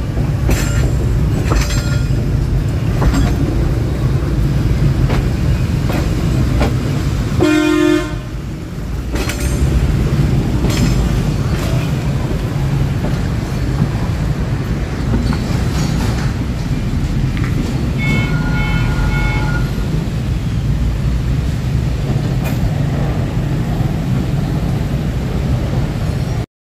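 D13E diesel-electric locomotive hauling passenger coaches at low speed: a steady engine and rolling rumble with wheels clicking over rail joints. A short horn blast about eight seconds in, and a second, pulsed run of horn-like tones around eighteen seconds in.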